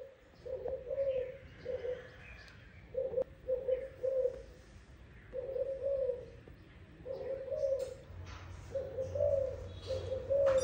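A dove cooing over and over: short, low, warbling coos in groups every second or two, with faint small-bird chirps behind.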